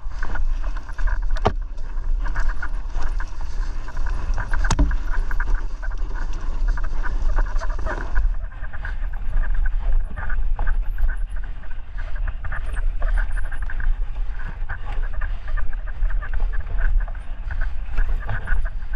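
Mountain bike riding fast down a dirt trail: wind buffets the bike-mounted microphone while the tyres roll over dirt and roots and the bike rattles over the bumps. A couple of sharp knocks, about a second and a half and about five seconds in.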